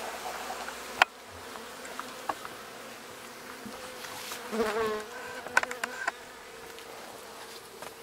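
Honey bee swarm buzzing steadily around an open hive, with a single bee's buzz rising and falling as it flies close about halfway through. A sharp knock about a second in and a few lighter clicks come from the wooden hive cover being handled and set on.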